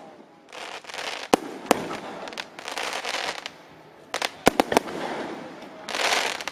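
Fireworks going off: sharp bangs, with a quick cluster of several about four and a half seconds in, between stretches of hissing crackle.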